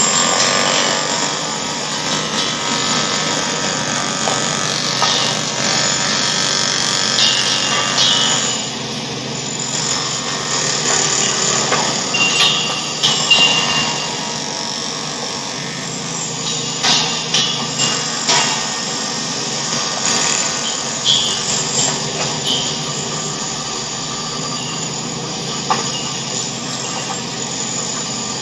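Chaotic racket sound effect: a dense, continuous din of mixed mechanical noise, with scattered clatters and short high whines throughout.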